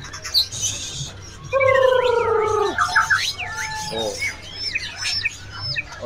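Caged songbirds calling. About a second and a half in comes a long, harsh, slightly falling note, followed by quick trills and short, sharp high whistles.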